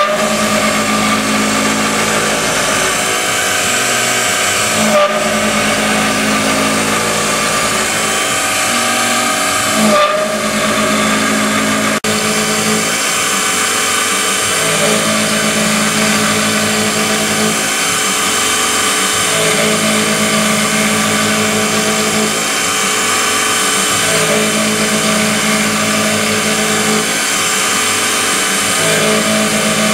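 Small Syil X3 benchtop CNC mill running, its spindle driving a 6 mm end mill through a metal enclosure, with a steady hiss of coolant spray. A low hum comes and goes every few seconds as the axes move.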